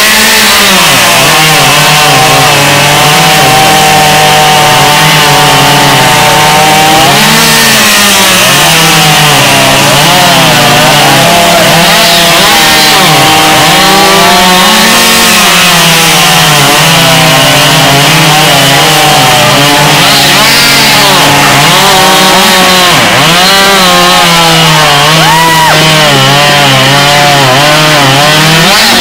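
Chainsaw running at full throttle and cutting through wood. Its engine pitch sags and recovers again and again as the chain loads up in the cut.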